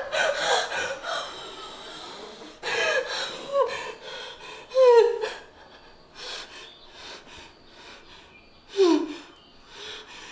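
A person gasping and breathing heavily, with three short falling vocal sounds: about a third of the way in, near the middle, and near the end.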